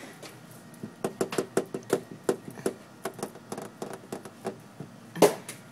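Fingers tapping on a window pane: a quick, uneven run of light taps, then one louder knock near the end.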